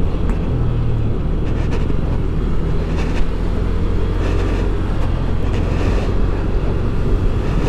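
Yamaha Aerox scooter cruising along the road: a steady drone of engine, wind and road noise with no distinct events.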